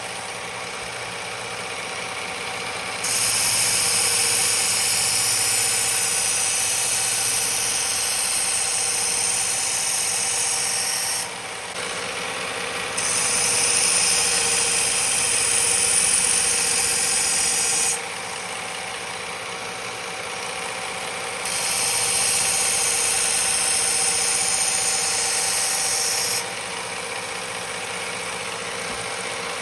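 Belt grinder running steadily while a chef's knife edge is ground on its 120-grit belt in three passes of about five seconds each, each pass a loud hissing grind that starts and stops abruptly over the motor hum: working up a burr along the edge.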